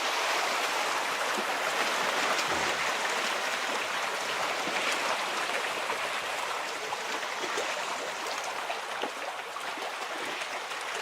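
Running water pouring and splashing steadily, easing off slightly toward the end.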